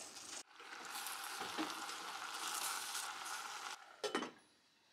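Spring cabbage sizzling in a stainless steel pot on a gas burner as it steams. The hiss runs for about three seconds and is followed by a sharp metallic clink as the stainless lid is set back on the pot.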